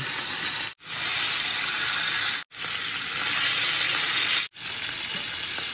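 Beef short ribs sizzling as they sear in hot oil in a frying pan, a steady hiss that cuts off abruptly three times and picks up again each time.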